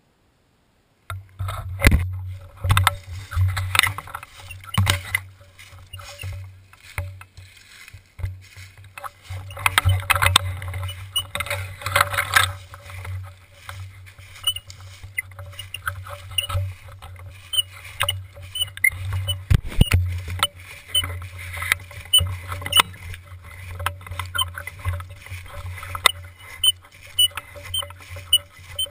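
Footsteps crunching through dry fallen leaves with knocking and rumbling handling noise from a camera mounted on a carried gun, starting after about a second of silence. A faint short high chirp repeats regularly through the second half.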